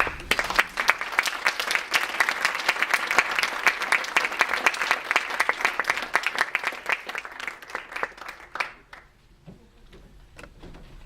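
Audience applauding. The clapping starts at once, stays dense for about eight seconds, then thins to a few scattered claps near the end.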